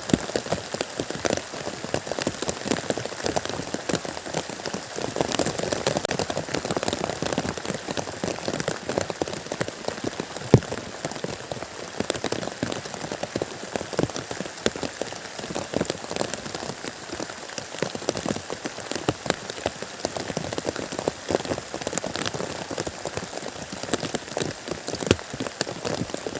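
Steady rain, with many individual drops striking close by in a dense, irregular stream of small hits. A single sharper knock about ten seconds in.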